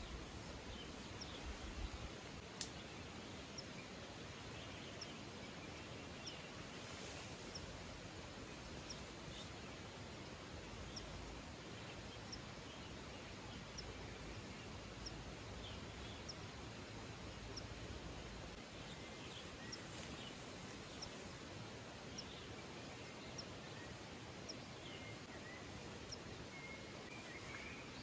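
Faint outdoor ambience: an even hiss with a faint high-pitched chirp repeating about once a second and a few other scattered chirps. A single sharp click sounds a little over two seconds in.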